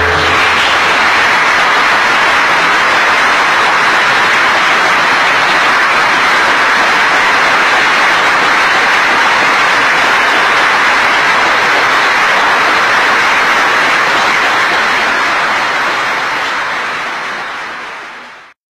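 Audience applause, a dense steady clapping that fades out over the last few seconds.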